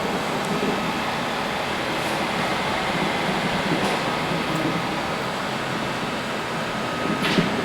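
GE microwave oven running on a test heat with a freshly replaced magnetron: a steady hum, with a short click near the end.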